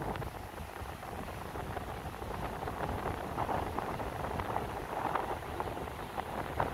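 Strong wind buffeting a phone microphone: a steady rushing noise with scattered crackles.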